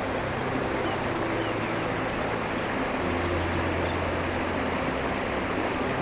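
Steady rush of a rocky river flowing over boulders.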